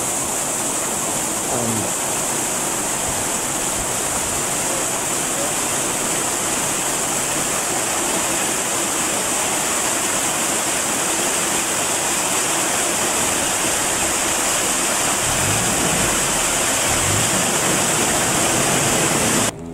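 Water rushing steadily into a canal lock through its open paddles. The sound stops suddenly near the end.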